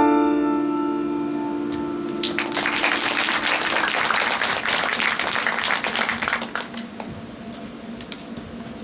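The last chord of a piano-accompanied piece ringing out and dying away, then audience applause starting about two seconds in and fading out after about four seconds.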